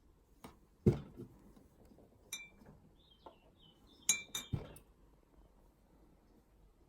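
Glassware clinking and knocking: a dull knock about a second in, then a short ringing clink at about two and a half seconds, and a quick pair of ringing clinks followed by a knock a little past the middle.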